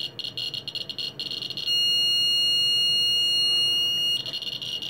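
Ludlum 177 Geiger counter clicking rapidly with each detection, then its count-rate alarm sounding a steady high-pitched tone for about two and a half seconds before cutting off, the clicks carrying on. The alarm means the count rate has crossed the alarm set point.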